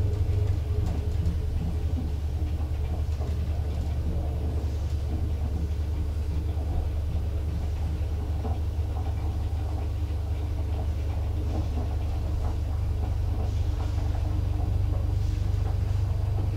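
1963 Kone elevator car travelling down its shaft: a steady low hum and rumble of the running lift, with light clicks now and then.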